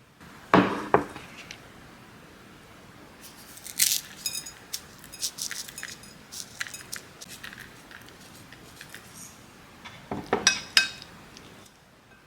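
Dishes and utensils being handled, clattering and clinking. There are two louder clatters, about half a second in and near the end, with a run of lighter clinks and knocks between them, one ringing briefly.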